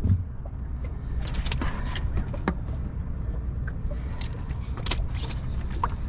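Scattered small clicks and rattles of heat-shrink wire connectors being handled, over a steady low rumble.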